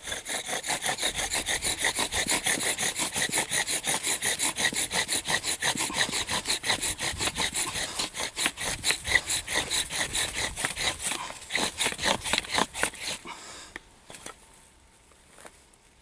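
Bow drill fire-making: a cherry-wood spindle spun back and forth in a notched pine fireboard, giving a fast, rhythmic rasping squeak with every bow stroke. This is the friction that grinds hot charred dust into the notch until it forms a smouldering ember. The drilling stops suddenly at about 13 seconds.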